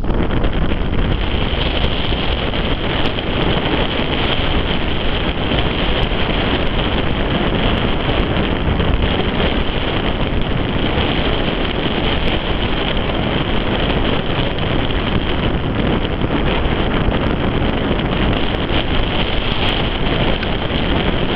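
Steady low rumble of a diesel freight locomotive running while it hauls autorack car carriers, mixed with wind buffeting the microphone.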